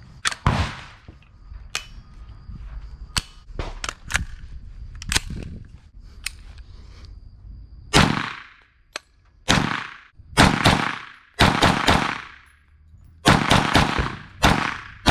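9mm AR-style pistol-caliber carbine, an Aero Precision EPC-9 build, firing a string of shots. They are lighter and spaced out at first, then about a dozen loud shots follow from about halfway, several in quick succession, each with a ringing tail.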